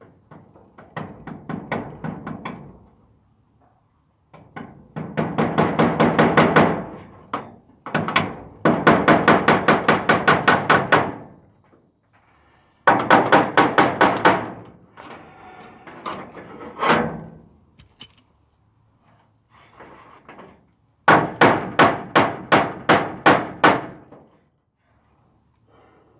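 Claw hammer striking the wooden base frame of a mobile chicken coop from underneath, in several bursts of quick blows, about six a second, each burst lasting a second or three, with short pauses between.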